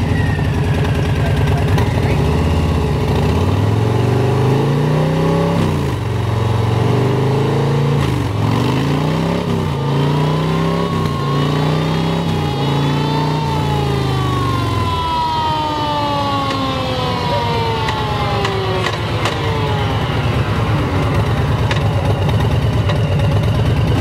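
2018 Harley-Davidson Heritage Softail's Milwaukee-Eight V-twin running and being shifted up through the gears: the engine note climbs and drops about five times, once at each upshift. Then a higher whine falls steadily for several seconds as it is shifted back down, with the engine still running underneath.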